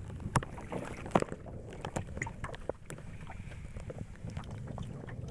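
Several sharp knocks and clatters over a steady low rumble, the loudest about half a second and just over a second in.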